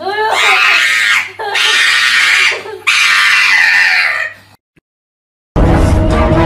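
Three long, loud screaming cries, one after another, then about a second of silence before music starts.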